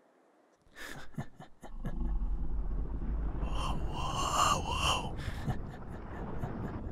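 Close-miked, mouth-made ASMR sound effects: a quick run of clicks about a second in, then a low, steady rumble with a few brief whistly tones that rise and fall near the middle.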